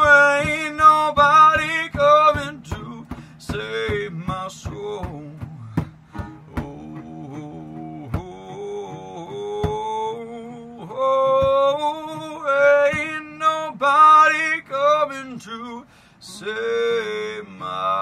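Male voice singing over two strummed guitars, one a metal-bodied resonator guitar and one an acoustic, with a steady low beat that drops out about six seconds in.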